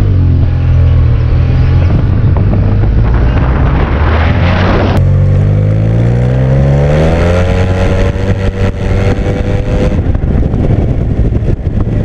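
Yamaha T-Max DX 530 cc parallel-twin maxi-scooter engine heard on board while riding. It holds a low, steady note at first, then rises steadily in pitch as the scooter accelerates over a few seconds, easing off near the end.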